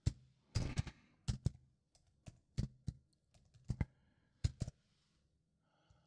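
Computer keyboard typing: short irregular bursts of keystrokes with pauses between them, as numbers are keyed in.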